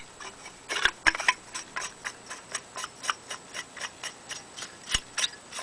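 Light metal clicks, about four a second, with a few louder knocks about a second in and near the end, as an AR-15 buffer tube is screwed into a lower receiver's threads.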